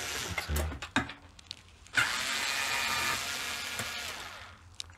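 Small cordless screwdriver running in short bursts as it backs out Torx T15 screws, with a few sharp clicks between bursts. The longest run, with a light whine, starts about two seconds in and fades out near the end.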